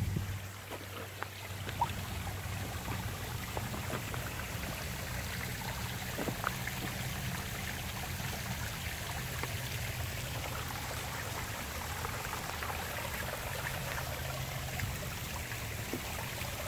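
Spring water running out of a cave mouth and splashing down a rock face as a small waterfall: a steady trickling, splashing rush. Underneath is a steady low hum, with a few faint clicks scattered through.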